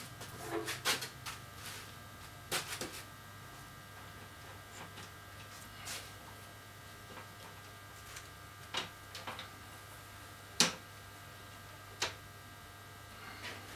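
LED T8 tubes and the ceiling light fixture being handled and pushed into place by hand: scattered light clicks and knocks of plastic and metal parts, with one sharper knock about three-quarters of the way through.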